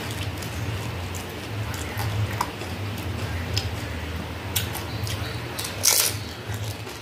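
Close eating sounds of fuchka (pani puri): small crisp clicks and crackles as the hollow fried puris are handled, then a loud crunch about six seconds in as a water-filled puri is bitten. A steady low hum runs underneath.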